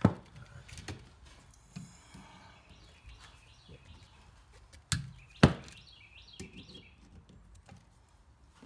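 Metal mounting tabs on a GFCI receptacle's strap being twisted and snapped off: a few sharp clicks and knocks, the loudest about halfway through.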